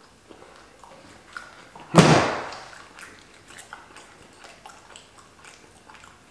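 One loud thump about two seconds in, something knocked or set down on the table, fading over most of a second. Then faint crinkles and small clicks as a ketchup sauce packet is handled and squeezed.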